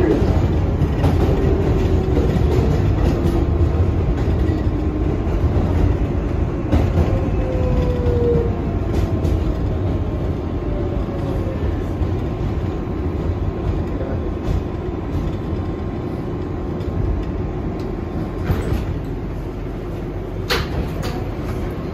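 R188 subway train running on the 7 line, heard from on board: a steady low rumble and rail noise that fades gradually, with a few faint pitched whines and some short clicks near the end.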